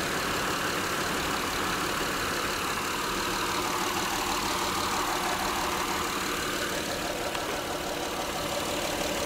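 2008 Acura MDX's 3.7-litre VTEC V6 idling steadily, heard with the hood open.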